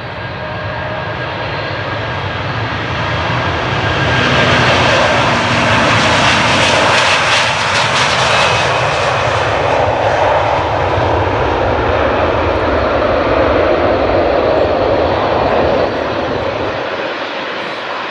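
Airbus A330-200 jet engines at takeoff thrust as the airliner rolls, lifts off and climbs away. The noise builds over the first few seconds, stays loud through the middle, and drops off near the end.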